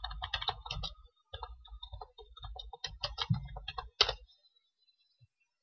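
Typing on a computer keyboard: a quick run of keystrokes for about four seconds, ending in one sharper click.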